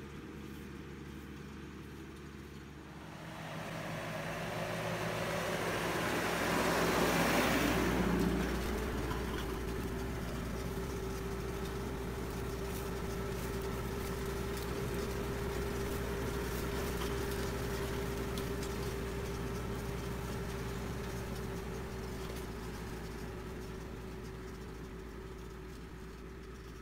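Tractor engine running steadily under load while driving a star-type in-row orchard hoe, with a steady whine over the engine note. The sound swells with a rushing noise to its loudest about seven to eight seconds in, then holds and slowly fades near the end.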